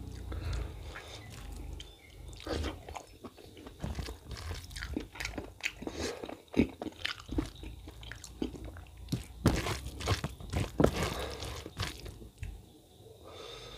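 Close-up chewing and crunching of a mouthful of mutton innards curry and rice, with many irregular sharp clicks and crunches.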